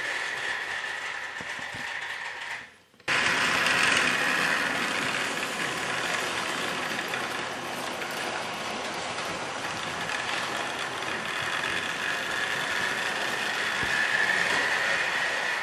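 Trix Express H0 model trains running on the layout: the steady running noise of small electric motors and wheels on track. It drops out briefly about three seconds in, then comes back a little louder.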